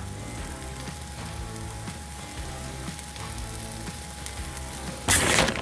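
Background music over the soft sizzle of a flour tortilla frying in a hot, lightly oiled pan, with a brief loud noise near the end.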